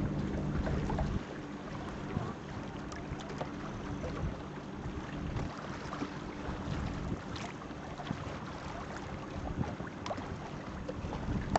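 Wind buffeting the microphone and choppy water splashing against a boat's hull. A steady low hum stops abruptly about a second in.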